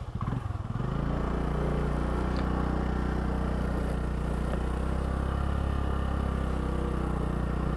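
Honda scooter's single-cylinder engine picking up revs in the first second, then running at a steady pitch while riding along.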